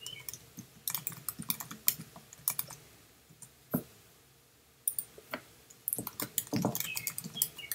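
Typing on a computer keyboard: quick, irregular keystrokes that stop for a couple of seconds in the middle and come faster near the end.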